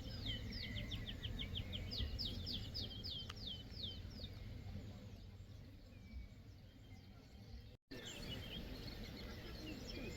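A songbird singing a run of quick, high, downward-sliding notes that speeds up and then slows over the first few seconds, followed by scattered chirps near the end, over a steady low rumble of wind or ambient noise.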